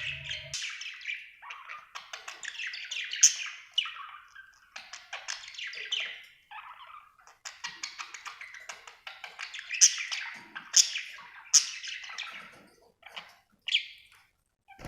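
Budgerigar chirping and chattering in a fast, busy run, with sharp, loud chirps now and then. It falls almost quiet shortly before the end.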